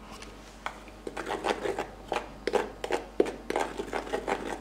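Flour being rubbed by hand through a plastic hand sieve with a metal wire inside: a fast, uneven run of short scraping strokes, about three a second, starting about a second in.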